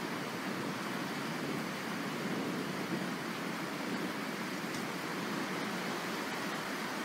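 Steady rain falling during a thunderstorm, an even noise without breaks.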